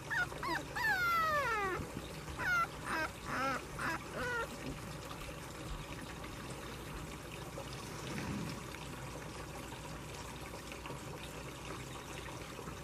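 Young puppies whining and yelping: a quick string of high, falling whines that stops about four seconds in.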